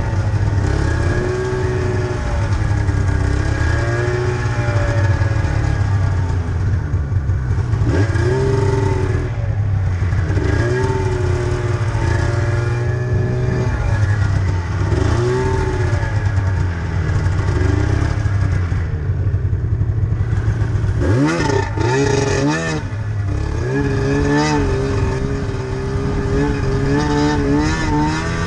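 Snowmobile engine running under throttle, its pitch climbing and dropping every few seconds over a steady low track rumble, with a burst of quick revs about two-thirds of the way through.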